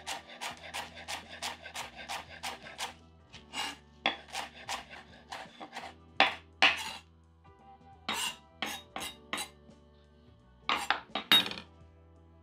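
Chef's knife chopping cilantro on a bamboo cutting board: a fast, even run of blade strikes about four a second, then slower, scattered strikes with a few louder knocks in the middle and near the end.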